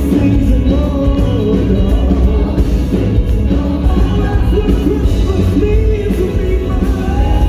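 A song with a voice singing over a band with a heavy, steady bass.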